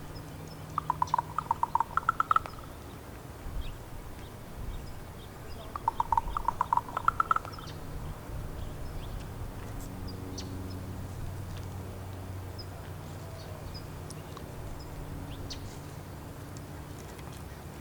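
Female raven giving her knocking call twice: each a quick run of hard clicks, about a second and a half long, the second coming about five seconds after the first.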